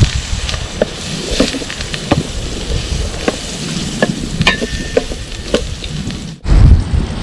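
Food sizzling in hot margarine in a pan, with a spatula stirring and clicking against the pan about once or twice a second. About six and a half seconds in the sound cuts off for an instant, then a louder low rumble comes in under the sizzle.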